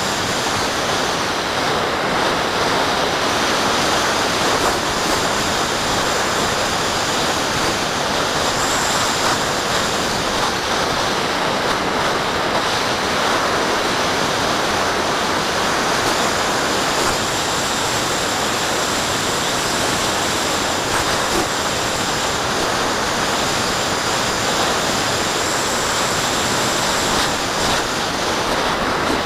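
Steady rushing wind noise from air streaming over the microphone of a small camera mounted on a model glider's wing in flight, with no motor note audible above it.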